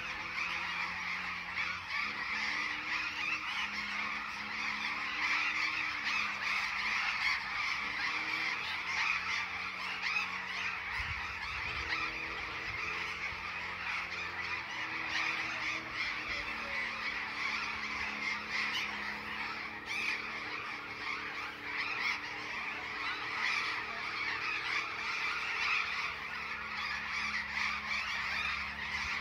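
A large flock of burrowing parrots perched on power lines, keeping up a continuous chorus of harsh, screeching calls.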